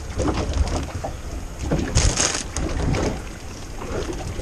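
Wind buffeting the microphone and water sloshing against the hull of a boat at sea, with a short hiss about two seconds in.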